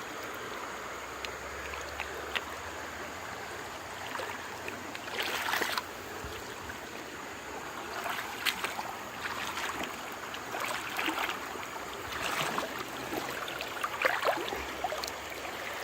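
Shallow creek water running steadily over rocks, with scattered clicks and a few short scuffs and splashes through it.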